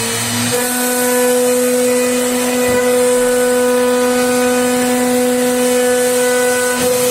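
CNC router spindle running at a steady high-pitched whine while cutting MDF, with a hiss of cutting noise; the pitch settles a little higher about half a second in.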